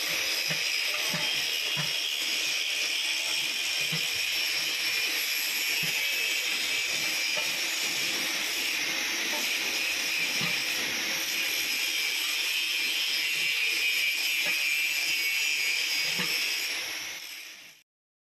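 Steady workshop machinery noise, an even hiss with a high whine, with a few faint knocks of metal parts being handled; it fades out near the end.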